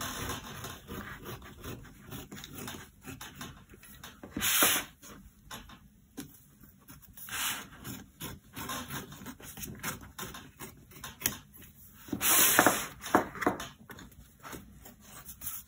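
Palette knife scraping along the gummed edges of a watercolour block, a run of rough rubbing strokes, loudest about four and a half seconds in and again around twelve to thirteen seconds in, as the blade works the protective cover sheet free of the gum.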